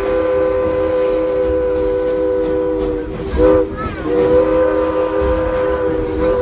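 Steam locomotive No. 111's chime whistle blowing a chord of several notes at once in long blasts. About three seconds in it breaks off briefly for a short toot, then sounds again and holds.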